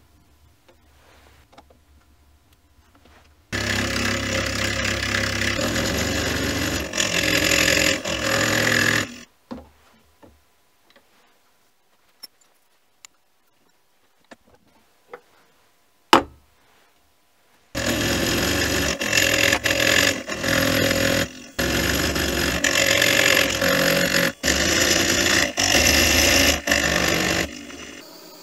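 Small milling machine running and cutting metal with an end mill, in two long stretches, with a quiet gap of small clicks and one sharp knock between them. Near the end a butane torch hisses steadily.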